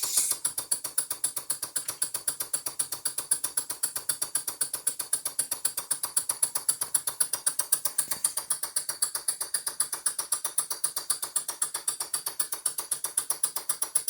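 PM Research No. 4 vertical live steam engine running steadily, driving a mini table saw, with a quick, even clicking beat of about seven strokes a second.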